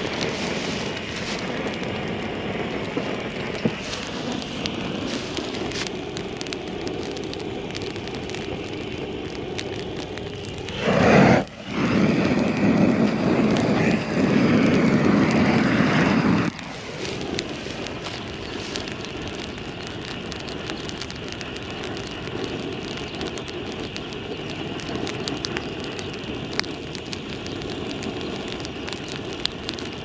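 Propane flame weeder torch hissing steadily over burning dry grass, with fine crackling from the grass fire. About eleven seconds in the torch runs much louder for some five seconds, then drops back suddenly.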